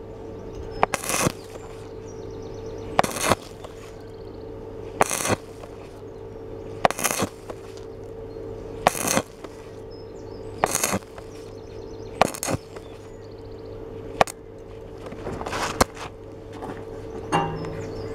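Stick (arc) welding rod struck in short bursts about every two seconds, each a sharp crack followed by a brief crackle, laying weld in stitches over a large hole in 2.2 mm steel tube. A steady hum runs underneath.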